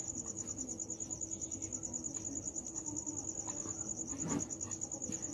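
Cricket chirping: a steady, high-pitched trill pulsing several times a second. A single soft knock about four seconds in.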